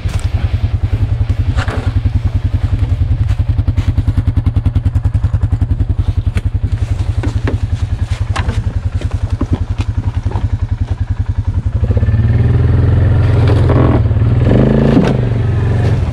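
Suzuki Vinson 4x4 ATV's single-cylinder engine idling with a fast, even chug, with a few sharp knocks over it. From about twelve seconds in the engine runs louder and rougher for a few seconds.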